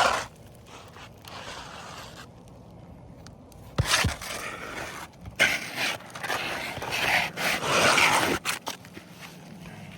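Asphalt shingles scraping and rubbing as they are handled on the roof, in several rasping bursts. A sharp knock comes about four seconds in, and the loudest scraping falls from about five to eight and a half seconds in.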